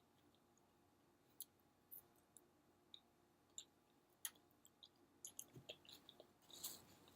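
Faint mouth clicks and smacks of someone chewing food close to the microphone, scattered at first and coming more often over the last couple of seconds.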